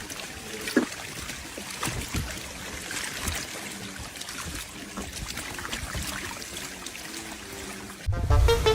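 Water splashing and rushing with scattered sharp clicks, over faint background music; loud music cuts in suddenly near the end.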